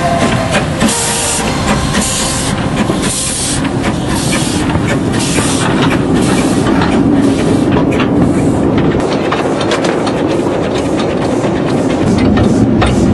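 Henschel narrow-gauge steam locomotive getting under way: hissing exhaust chuffs about one a second with escaping steam, giving way in the second half to a steady rumble and clicking of wheels on the rails.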